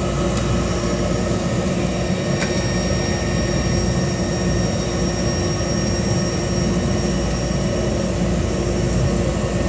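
A small high-wing aircraft's engine and propeller running steadily, heard from inside the cabin while the plane rolls along the ground after landing.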